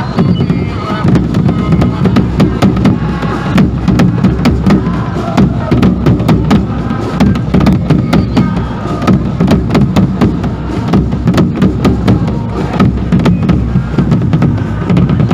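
Supporters' marching bass drums beaten loudly in a fast, continuous pattern of heavy strokes, with a crowd chanting along.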